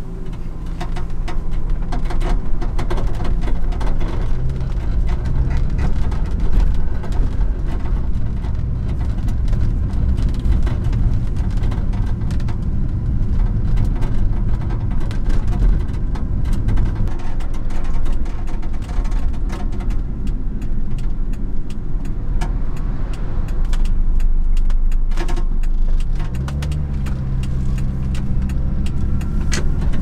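Light truck driving: its engine runs steadily under road noise, and near the end the engine note rises as it picks up speed.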